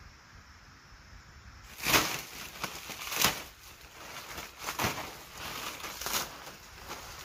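A long knife slicing through the dry palm-leaf thatch at the edge of a roof, a sharp rustling cut about every one and a half seconds, starting about two seconds in.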